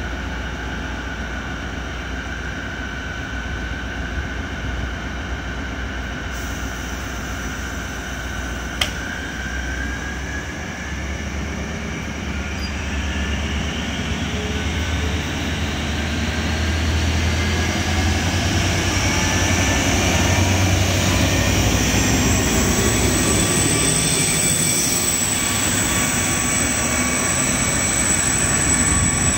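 DB class 218 diesel-hydraulic locomotive starting away with its train: its V12 diesel runs with a steady low drone and a high whine, then powers up, the whine rising steadily in pitch and the engine getting louder as the train gets moving. A short click comes about nine seconds in.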